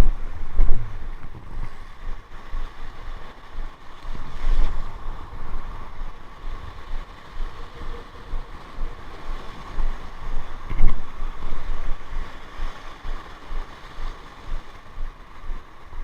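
Wind buffeting the microphone in irregular gusts over the steady wash of a rough sea's surf.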